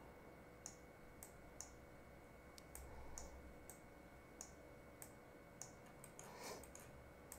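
Faint computer mouse clicks, about a dozen at irregular intervals, over a faint steady electrical hum.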